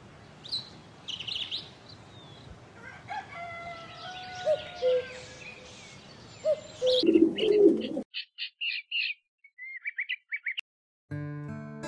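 Small birds chirping and tweeting, with a rooster crowing about seven seconds in. After that the chirps come as short separate bursts over silence.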